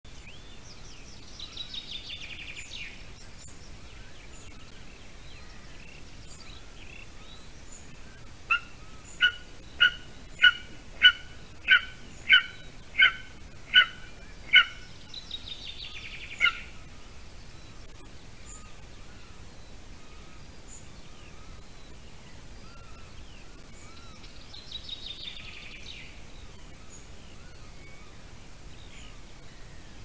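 Golden eagle chick calling: about ten sharp, evenly spaced calls over six seconds, with one more a couple of seconds later. Between them a small songbird sings a descending trilled phrase three times.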